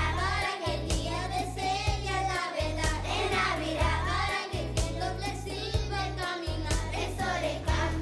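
A school choir of children singing a holiday song with instrumental accompaniment that has a steady beat.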